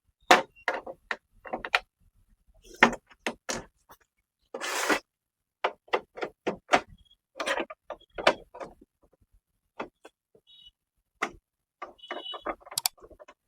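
Irregular clicks and knocks of a screwdriver and hands working on a laser printer's plastic casing as its screws are taken out, with a longer scraping rustle about five seconds in.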